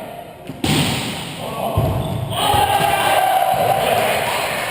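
Thuds of a volleyball being struck during play, a sharp one about half a second in and another near two seconds, with players' voices.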